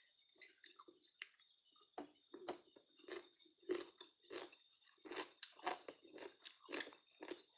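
A person chewing food close to the phone's microphone: short chewing sounds, sparse at first, then about two a second and louder from about two seconds in.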